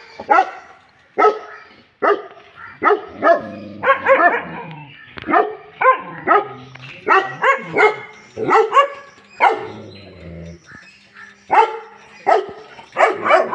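A dog barking over and over in short, separate barks, one or two a second, with a brief pause about two-thirds of the way through.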